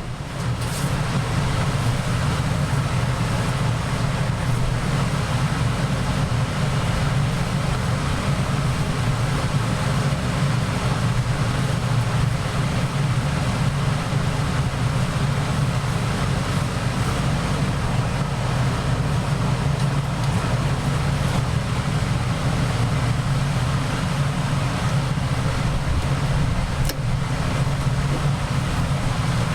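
Arc welder running on a Peerless transaxle part: a steady, unbroken arc noise with a low hum underneath, lasting the whole stretch.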